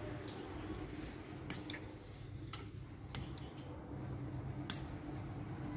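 Stainless-steel spoon clinking lightly against small ceramic bowls as liquid is spooned between them, about six sharp clinks with the loudest a little before the end, over a faint steady low hum.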